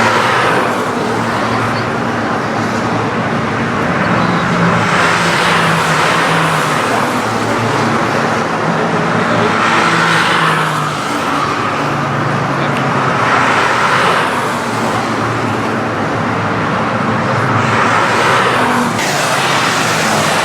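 Citroën C1 race cars running on a wet track: engines held at steady revs with shifts in pitch, and a hiss of tyre spray that swells and fades every few seconds.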